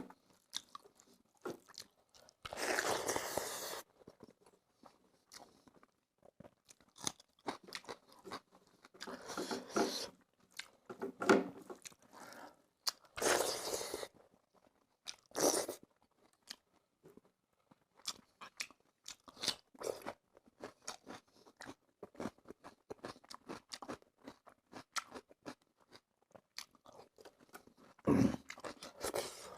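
A person chewing and crunching food close to the microphone, with loud crunchy bites every few seconds and quieter smacking and ticking in between.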